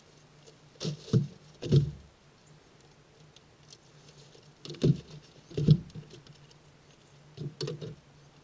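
Bags and hiking gear being set down in a car's cargo area: a scattering of about seven soft thumps and rustles at irregular intervals.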